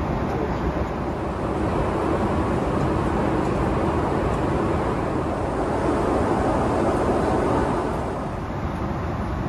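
Steady cabin noise of a Boeing 777-200LR airliner in flight: the even drone of airflow and engines, a little quieter near the end.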